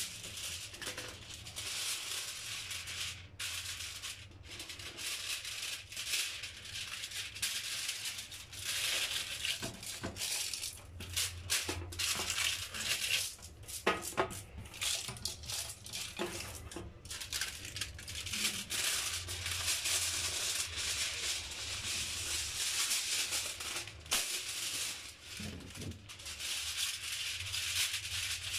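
Sheet of aluminium foil crinkling and rustling as hands smooth and press it down over a metal baking tray: an irregular, continuous crackling hiss with brief pauses.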